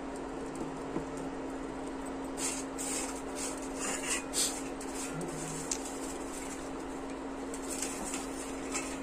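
Induction cooktop running with a steady hum under a nonstick pan of heating mustard oil. Between about two and a half and four and a half seconds in come a few faint crackles from the hot oil.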